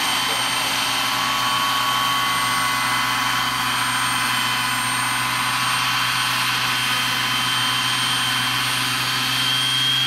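Giant-scale radio-controlled Eurocopter EC135 model helicopter running steadily, a high whine over a low rotor hum, as it hovers low and settles onto its skids. The whine rises slightly near the end.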